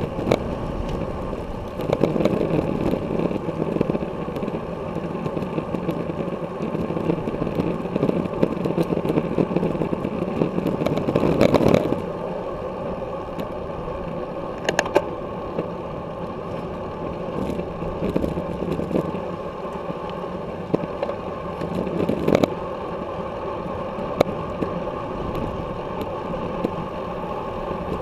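Wind rushing over the microphone of a camera mounted on a road bike at racing speed, mixed with tyre and road noise and scattered sharp knocks and rattles from the bike and mount over the road surface. The rush is louder for the first dozen seconds, then eases.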